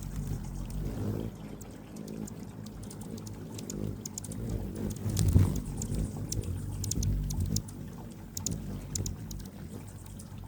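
Anna's hummingbirds giving short, high chip notes, scattered irregularly, over a low, steady hum that swells about five seconds in.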